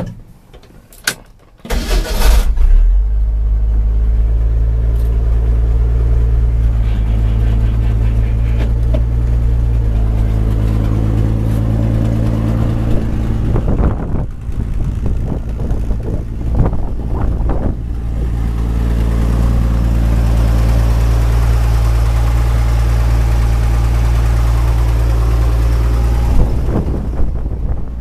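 1967 Ford F600 grain truck's engine cranked with the key and catching about two seconds in, then running steadily. It keeps running while the hydraulic hoist raises the dump bed.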